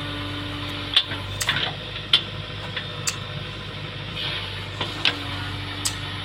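A small motor humming steadily, with a handful of sharp clicks and taps scattered through it. Its higher tone drops out about a second in and comes back near the end.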